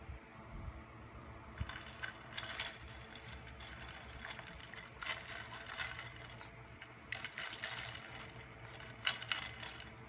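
A puppy lapping water from a bowl, in bursts of quick laps with short pauses, over a steady low hum.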